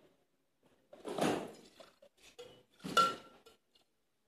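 Stainless steel cocktail shaker tins knocking and clinking as they are handled. There are two louder clanks, about a second in and near three seconds in, the second with a short metallic ring, and light ticks between them.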